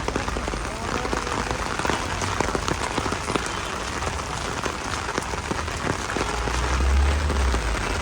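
Heavy rain falling on a hard surface, a steady hiss dotted with many sharp drop ticks. A low rumble swells briefly near the end.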